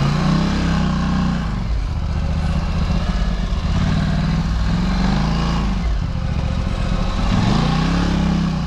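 Quad bike (ATV) engine revving up and falling back in uneven surges as it is ridden over rough ground, its pitch rising and dropping about three times, with jerky throttle from an unpractised rider.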